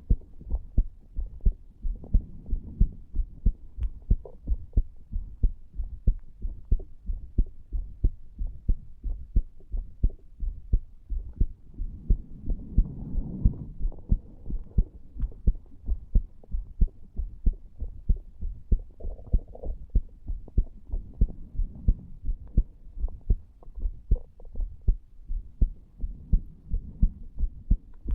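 A human heartbeat recorded against the chest over the tricuspid valve area: a steady, regular series of low lub-dub thumps.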